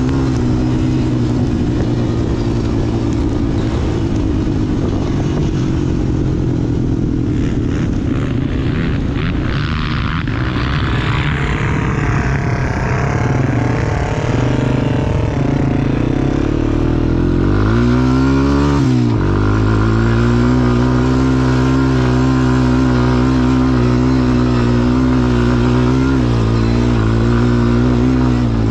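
Quad bike engine running under throttle while being ridden, with a brief rise and fall in revs about eighteen seconds in before it settles at a steady, slightly higher pitch.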